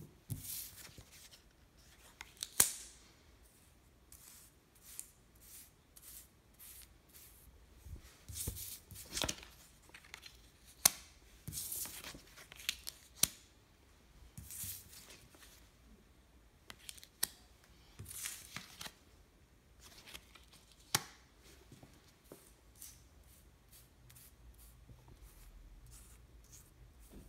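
Playing cards being dealt one at a time onto a countertop: short papery swishes as cards slide out and across the surface, with a few sharp clicks as they are set down, irregularly spaced.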